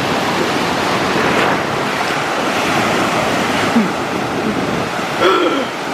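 Ocean waves breaking in the shallows: a steady, loud rush of foaming whitewater.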